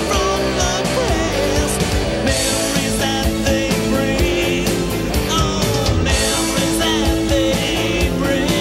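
Psychedelic rock song playing: a full band with guitar and drums keeping a steady beat.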